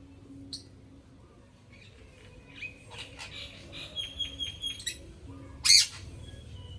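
Sun conure calling: a short chirp, then a stretch of chattering chirps and clicks, and one loud, sharp squawk about a second before the end.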